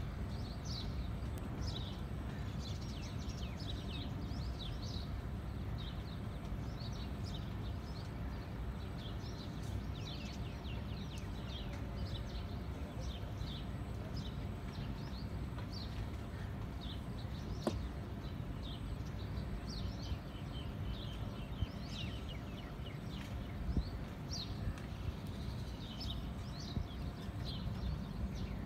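Many small birds chirping busily, several short high chirps a second, over a steady low rumble.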